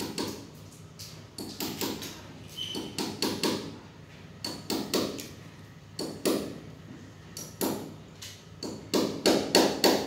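Hammer driving a nail into a wall: sharp taps in short irregular runs, with the loudest and quickest run of blows near the end.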